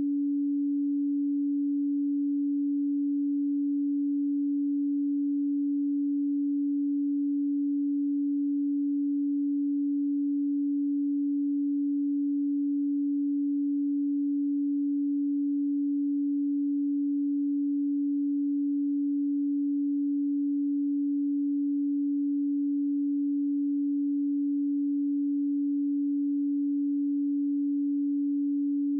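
Pure 285 Hz sine tone, one steady unwavering pitch.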